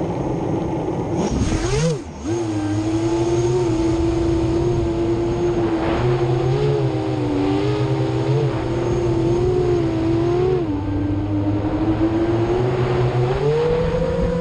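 FPV quadcopter's brushless motors spinning 7-inch HQ 7040 three-blade props in flight: a steady buzzing whine whose pitch follows the throttle. It rises briefly about two seconds in, wavers through the middle, dips, and climbs again near the end.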